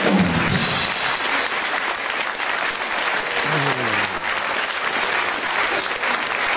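Studio audience applauding, steady clapping throughout, with the tail of a music sting ending about half a second in.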